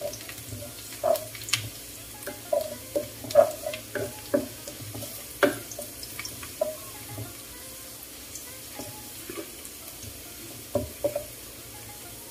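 Wooden spatula scraping and knocking against a nonstick wok while sliced garlic is stirred, with a faint sizzle of the garlic frying in oil over low heat. The knocks come thick in the first half, thin out, and come in a short cluster near the end.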